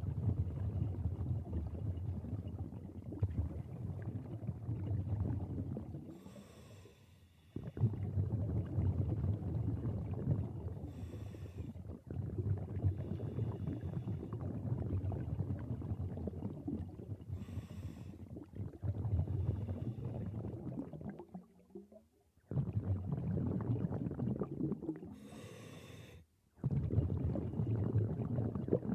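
A scuba diver breathing through a regulator close to the microphone: short hissing inhalations every several seconds, each followed by a long rumbling, gurgling stream of exhaled bubbles lasting a few seconds.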